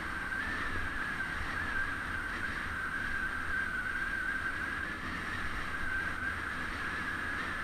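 Riding noise from a camera on a moving bicycle: a steady low rumble of wind and road, with a steady high whine that wavers slightly in pitch.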